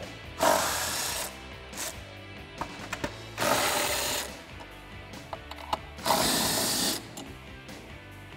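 Cordless 3/8-inch electric impact running in three short bursts, each just under a second and about three seconds apart, as it takes off the spare tire's three lug nuts through a lug-nut key adapter.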